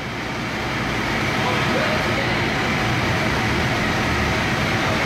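Steady industrial machinery noise from an industrial dust-extraction vacuum and mixer running. It fades up over the first second or so, then holds as a constant hum and hiss with a low rumble.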